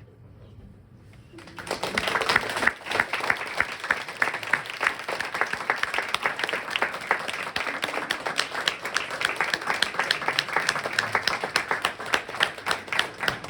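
Audience applauding: after a quiet second and a half, many hands start clapping at once and keep up a steady applause.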